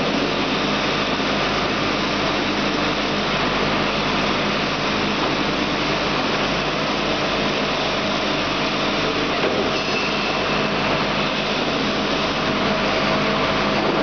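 Heavy-duty CNC sheet-metal V-grooving machine running with a steady mechanical hum and hiss.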